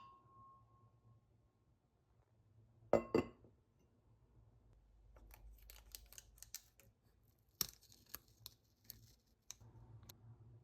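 Household handling sounds: a sharp double knock about three seconds in, then a run of crisp rustles and several sharp clicks.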